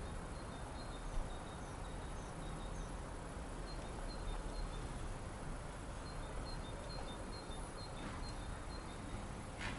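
Small birds chirping in strings of short, high notes over a steady outdoor background hiss and low rumble, with a couple of brief knocks.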